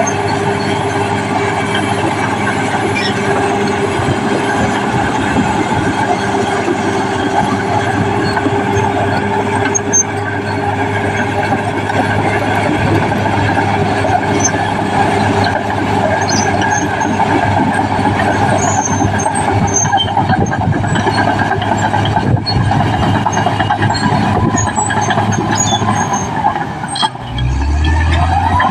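Caterpillar D6R XL crawler bulldozer working as it levels ground: its diesel engine runs steadily under load, with scattered high squeaks from the running gear. The engine note shifts briefly near the end.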